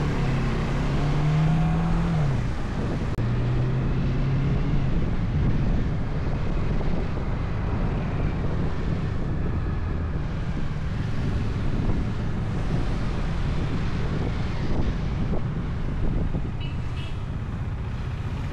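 Bajaj Dominar 400's single-cylinder engine running under way, with wind rushing over the microphone. The engine note rises for about two seconds near the start, then drops away, and afterwards it blends into the steady rush.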